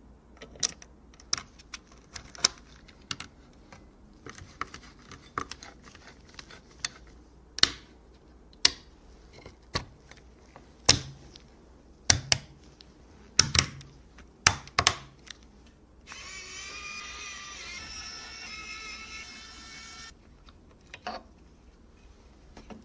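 Sharp clicks and taps of computer hardware being handled and fitted together. About two-thirds of the way through, a small electric screwdriver runs with a steady whine for about four seconds.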